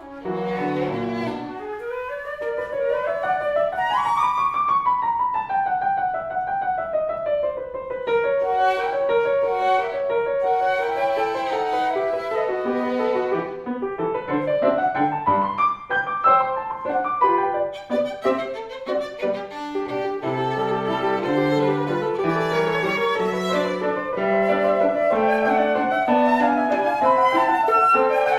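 Instrumental music played by a trio: a lead line slides up in a long glide and back down over accompanying notes, and sweeps up again about halfway through.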